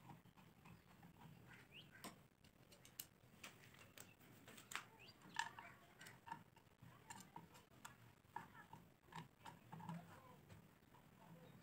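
Faint, irregular clicks and small creaks of a hand screwdriver driving wood screws into a wooden block on an electric planer.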